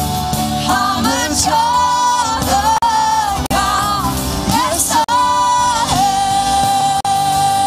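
Live worship band playing a gospel song, with singers carrying the melody, a female voice most prominent, over guitars and keyboard. The voice holds one long note near the end.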